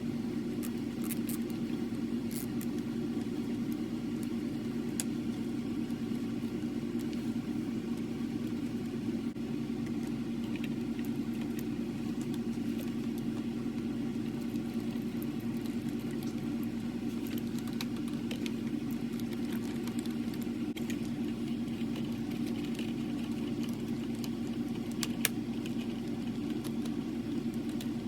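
Steady low mechanical hum throughout, with scattered faint clicks and taps as small Torx screws and a driver are handled.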